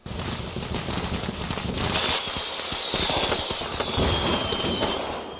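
A string of firecrackers going off in rapid, crackling bursts, with a high whistle gliding slowly down in pitch from about two seconds in.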